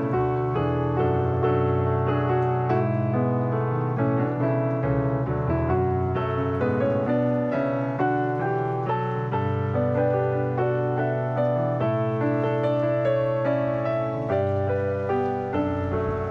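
Background music: a steady run of soft keyboard notes over a held low note.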